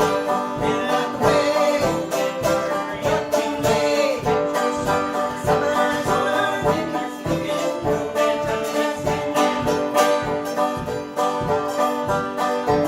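Banjo picking a lively old-time tune with a steady, even beat.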